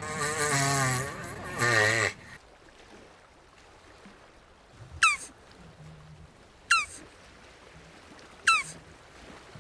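Red-footed tortoise (jabuti) calling: a wavering, moaning call with a wobbling pitch for about two seconds. Then come three short, high chirps that fall in pitch, about a second and a half apart.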